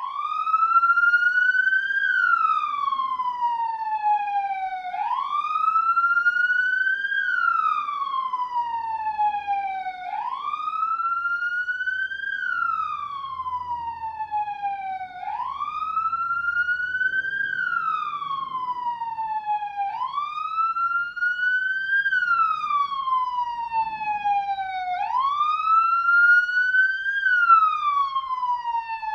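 Police siren in wail mode: a single tone sweeping smoothly up for about two seconds and down for about three, repeating every five seconds or so.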